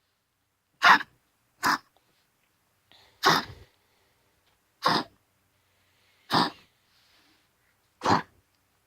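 Pomeranian coughing: six short, harsh coughs, one at a time, one to two seconds apart. It is a persistent cough whose cause vets have not found; they ruled out heart disease, pneumonia and a collapsed trachea.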